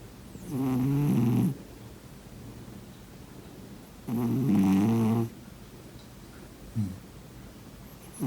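A sleeping cat snoring: two drawn-out, wavering snores about three and a half seconds apart, a brief short one later, and the start of another right at the end.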